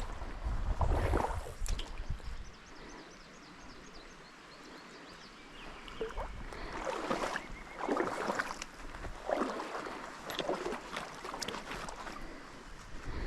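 Wading steps sloshing through a shallow trout stream, about one splash a second through the second half, with a gust of wind on the microphone at the start.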